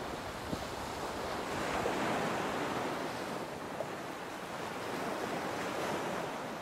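Open-sea waves rushing and splashing against the hull of a sailing catamaran under way, with wind blowing across the microphone. The wash swells twice, about two seconds in and again near the end.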